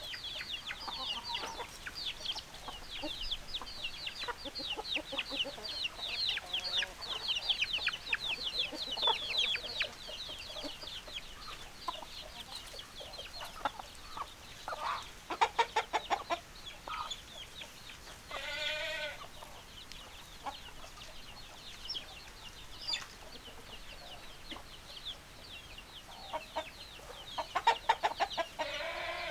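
Chickens clucking and calling. A dense run of quick, high chirps fills the first ten seconds, followed by scattered separate calls, including one longer wavering call a little past the middle and a burst of calls near the end.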